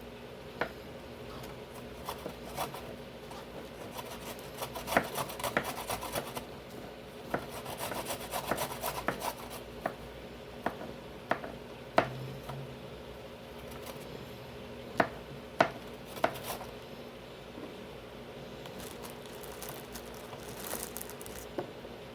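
Knife chopping mushrooms on a cutting board: irregular taps of the blade against the board, in quick runs about five and eight seconds in, then a few single strokes, over a faint steady hum.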